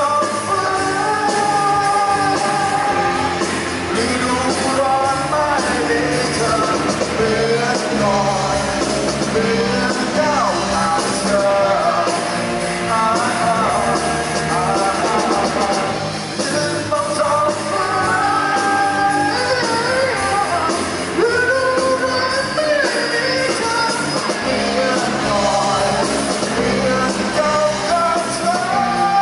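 Live rock band playing: a male singer over electric guitars, bass guitar and drum kit.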